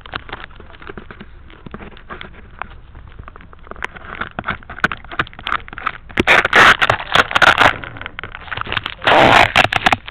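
Handling noise from a small camera strapped under a model airplane's wing as the plane is carried: steady crackling and scraping clicks, with two louder rubbing bursts about six and nine seconds in.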